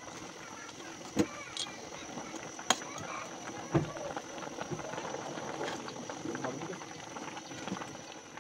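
Water at a rolling boil bubbling in an aluminium stockpot as spaghetti is stirred with metal tongs, with three sharp clinks of the tongs against the pot in the first four seconds.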